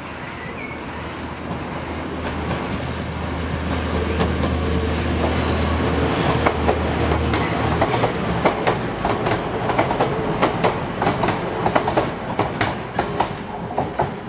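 TransPennine Express Class 185 Desiro diesel multiple unit passing. Its steady low diesel drone stops about eight seconds in, then its wheels clatter over rail joints and pointwork in a long run of sharp clicks.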